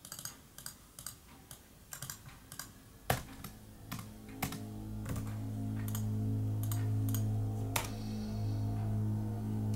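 Typing on a laptop keyboard: irregular keystroke clicks, with the sharpest about three seconds in. From about four seconds a low droning music tone fades in and swells to become the loudest sound.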